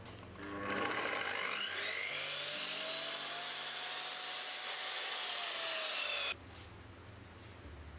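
Compound miter saw motor spinning up with a rising whine, then running steadily as the blade cuts through a small piece of plywood. The sound stops suddenly about six seconds in.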